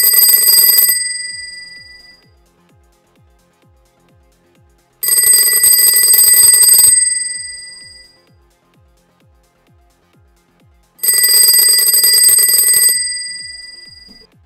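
Bell ringer of a 1944 Automatic Electric Type 40 rotary desk telephone ringing three times, in rings of about two seconds spaced about six seconds apart, each ringing out for about a second after it stops. The restored ringer is working on an incoming call.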